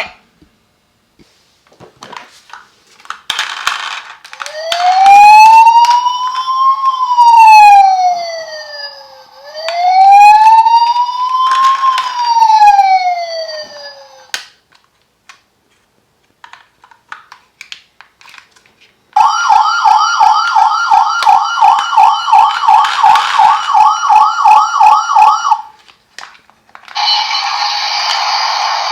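Electronic siren sounds from toy ambulances. A wail sweeps up and down twice, slowly. A few light clicks follow, then a fast warbling siren of about three cycles a second for six or seven seconds. Another steady buzzy electronic sound starts near the end.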